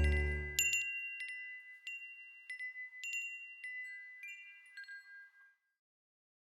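Background music ending: the low chords stop about a second in, leaving scattered high, bright chime notes that ring and fade out, with silence after about five and a half seconds.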